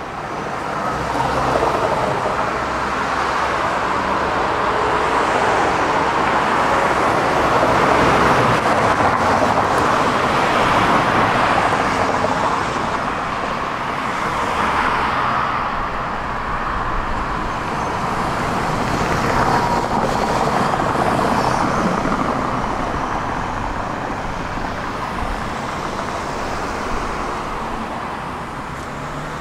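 Tram in motion: a steady rolling noise of wheels on rails and running gear. It grows louder in the first two seconds and eases near the end.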